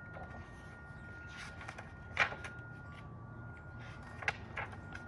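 A hardcover picture book being handled and opened: a few short paper rustles and taps, the sharpest about two seconds in, over a faint steady high tone.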